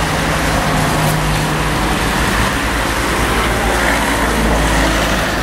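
Steady road traffic noise: a continuous hiss with a low engine rumble that grows heavier about halfway through.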